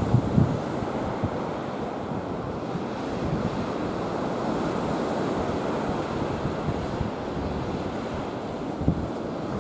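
Surf breaking on a sandy beach, a steady rush of waves, with strong wind buffeting the microphone in gusts, most sharply at the start and once near the end.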